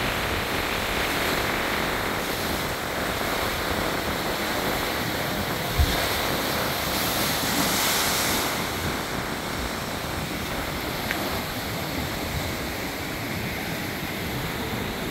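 Heavy surf surging into a limestone cliff inlet, with wind on the microphone. Just before six seconds in, a short low thump as a wave slams into the rock, followed by a couple of seconds of hissing spray.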